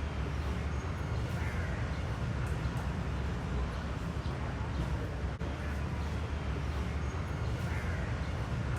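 Crows cawing twice, about a second and a half in and again near the end, over a steady low rumble.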